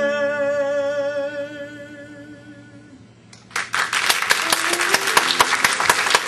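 A singer holds the final note of a song with vibrato over an accompanying guitar, and it fades out over about three seconds. About three and a half seconds in, audience applause breaks out and carries on.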